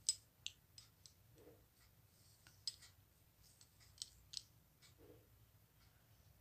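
Metal crochet hook working yarn by hand: about seven faint, sharp clicks at irregular intervals, the loudest right at the start, over near silence.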